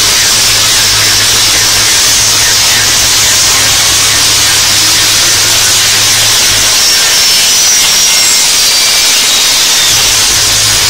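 Tesla coils firing continuously, their lightning arcs giving a loud, steady electrical discharge noise. A low hum underneath drops away for a few seconds in the second half.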